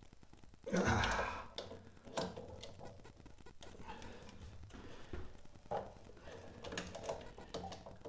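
Pliers working the rusty union nut of a boiler circulation pump: metal clicks and scrapes of the jaws on the nut. A louder rasping sound comes about a second in, and scattered knocks follow.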